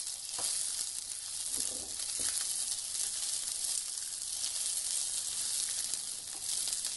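Sliced spring onions sizzling steadily in hot oil in a frying pan, with a few soft scrapes of a wooden spatula stirring them.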